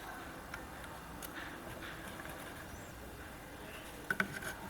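Faint handling noises from fitting a speaker bracket and its cables: a few scattered light clicks and taps, then a short cluster of clicks about four seconds in.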